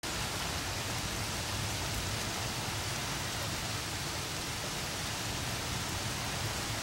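Steady rain falling on foliage and lawn ahead of a thunderstorm, an even hiss with no single drops or claps standing out.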